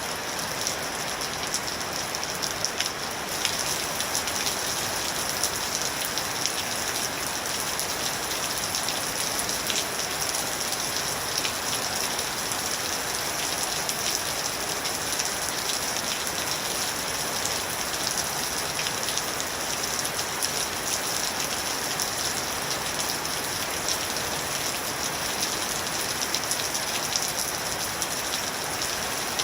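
Steady rain falling and pattering on a surface, with many fine drop ticks over a constant hiss.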